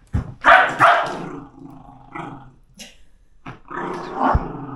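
Border Terrier growling at a toy, first in a loud burst near the start, then in a long steady growl from about three and a half seconds in.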